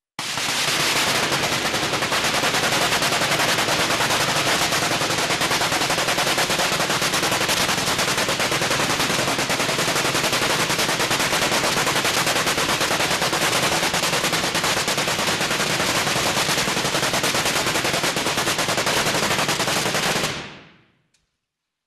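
High-voltage electric arcs (artificial lightning) crackling continuously: a loud, rapid, rattling buzz of sparks that cuts off about 20 seconds in.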